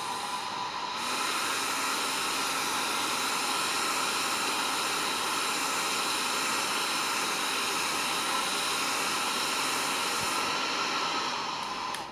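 Hair dryer blowing steadily with a whine, heating a phone's plastic back cover to loosen the glued NFC sticker. About a second in it steps up to a higher, louder speed, and at the end its pitch falls and it stops.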